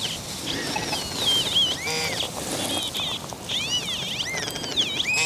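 Birds calling: many short, overlapping chirps that rise and fall in pitch.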